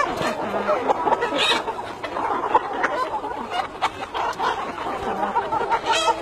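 A flock of chickens clucking, many short overlapping calls.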